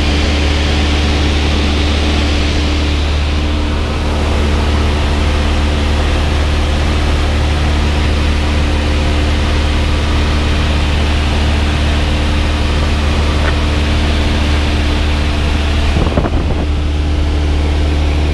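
Cabin noise of a light single-engine propeller plane in flight: the piston engine and propeller drone steadily, with a strong deep hum, heard from inside the cockpit.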